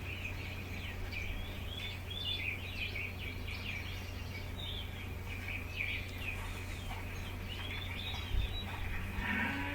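Many small birds chirping and twittering in quick, short calls throughout, over a steady low hum.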